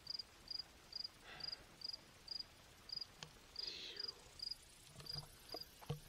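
A cricket chirping steadily, short high chirps a little over two a second, with faint rustling twice.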